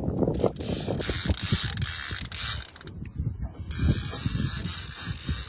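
Fishing reel being cranked in against a hooked white sturgeon, its gears giving a fast run of clicks, with a bright hiss that comes and goes.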